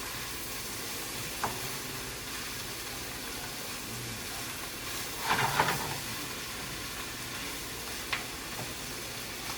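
Chicken and vegetables sizzling in a pan of a little canola oil, a steady hiss, with a short louder burst about five seconds in and a couple of faint clicks.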